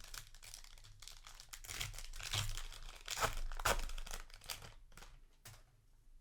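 Booster pack's foil wrapper crinkling and tearing as it is opened, in irregular crackly bursts that are loudest from about two to four seconds in.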